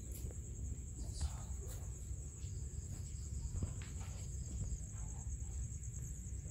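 Crickets trilling steadily in a high, even pulse over a low rumble of background noise, with a couple of faint scuffles from cats tussling on a dirt floor.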